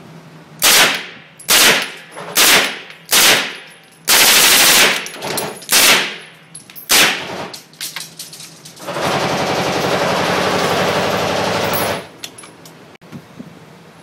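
Gunfire: four single shots about a second apart, a short rapid burst, and two more shots, followed by about three seconds of a steady loud rushing noise that cuts off suddenly.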